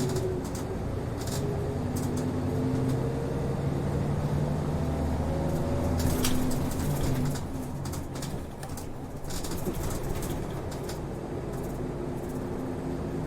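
Diesel route bus running, heard inside the cabin: the engine's hum climbs in pitch for the first few seconds, drops about six seconds in as if at a gear change, then runs steadily, with light rattles and clicks from the cabin.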